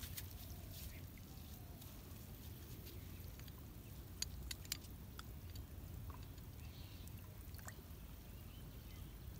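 Faint outdoor background: a steady low rumble with scattered small clicks, and two sharper clicks about half a second apart a little past the middle.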